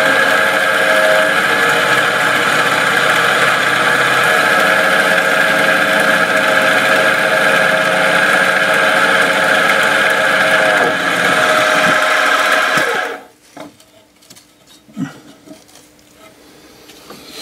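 Small bench mill-drill spindle motor running steadily while drilling small holes in a brass piece; it cuts off suddenly about 13 seconds in. A few light knocks and handling sounds follow as the work is turned on the rotary table.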